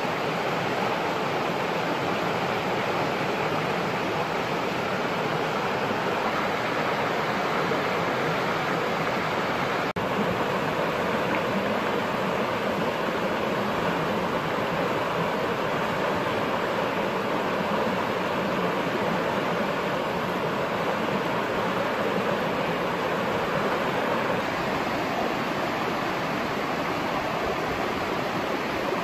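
Fast mountain stream rushing over rocks in small rapids, a steady, even wash of water noise, with a momentary dropout about ten seconds in.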